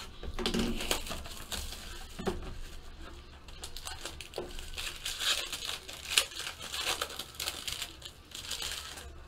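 Foil trading-card pack wrapper crinkling and tearing as it is opened, with cardboard box handling, in irregular rustles and crackles.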